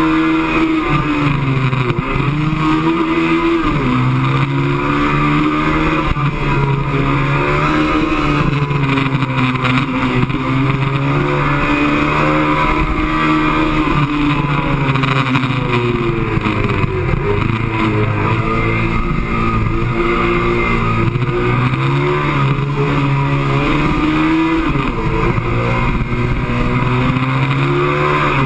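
Sport motorcycle engine at high revs on a race track, heard close up from an onboard camera mounted on the bike. Its pitch climbs as the bike accelerates and drops back several times as it slows for the corners.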